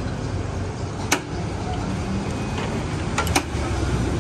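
Busy street background with a steady low traffic rumble, broken by a sharp click about a second in and two quick clicks near the end.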